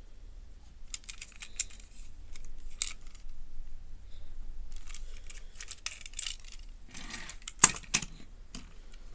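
Plastic Plarail toy train (KiHa 32 Hobby Train) being handled: scattered light clicks and rattles with some crinkly rustling. Near the end come two sharp knocks as the toy is set down on the table.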